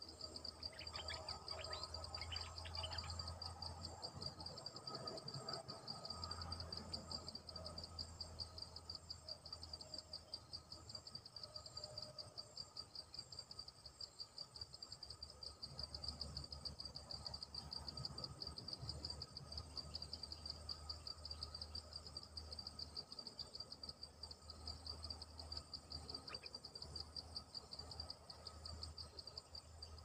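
A high, fast-pulsing insect drone runs throughout. Over it, stripe-throated bulbuls give short chirps and warbling calls, mostly in the first several seconds.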